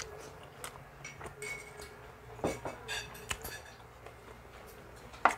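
Cutlery clinking against a plate or bowl while eating: several short, scattered clinks, the loudest near the end.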